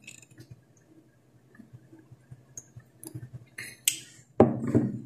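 Quiet sips from a ceramic coffee mug, with small clicks and clinks of the mug, and one louder short sound about four and a half seconds in.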